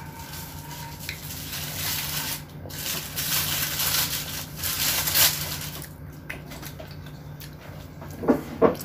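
A child slurping spaghetti noodles close to the microphone: a long, airy slurp that builds over several seconds. Two short clicks come near the end.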